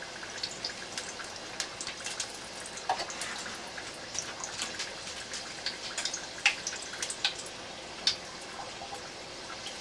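Chicken egg rolls deep-frying in hot oil at 350°F in an electric deep fryer: a steady sizzle with many scattered sharp pops and crackles as the wrappers crisp.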